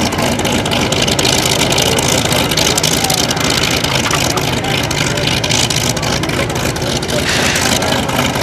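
Douglas A-1 Skyraider's large radial piston engine running steadily at low power on the ground.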